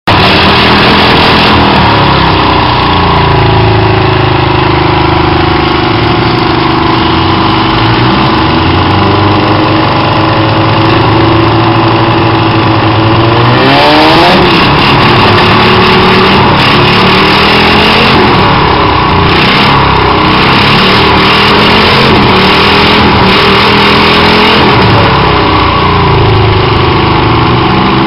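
V8 petrol engine running loudly on a stand and being revved, its pitch rising and falling, with a steep rev-up about halfway through.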